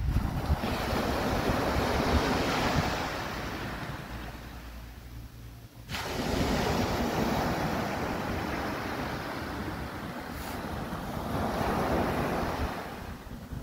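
Small waves breaking and washing up a sandy beach, a steady hiss of surf that swells and fades several times, with light wind on the microphone.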